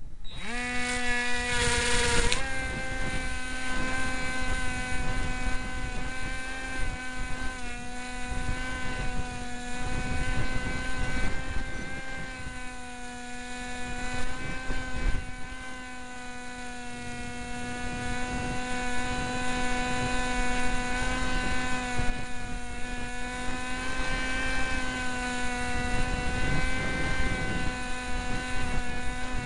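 Cox SkyCruiser model plane's motor and propeller running at a steady high pitch near full power, heard from the onboard camera, with wind buffeting the microphone.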